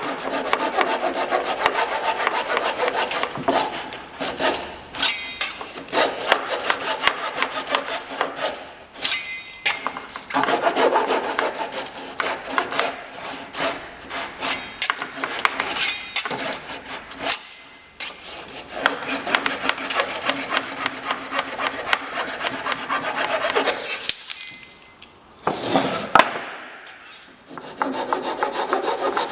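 Hand tool scraping against white oak in long runs of fast, rough strokes, stopping briefly a few times.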